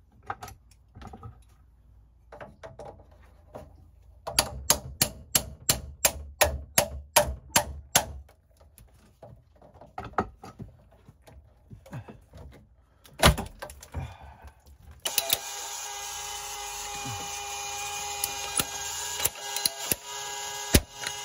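Hand tools working the plastic water-heater supply pipes and fittings: a run of quick, regular clicks, about three a second, from about four to eight seconds in, then scattered clicks and a sharp snap about thirteen seconds in. From about fifteen seconds a steady motor hum with a hiss sets in and keeps going.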